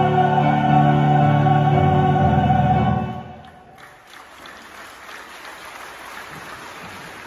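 A mixed choir holds the final chord of an anthem, released about three seconds in, the sound dying away quickly. After it only an even background noise remains.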